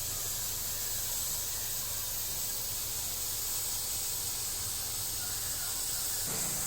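A steady high hiss with a low hum underneath, unchanging in level.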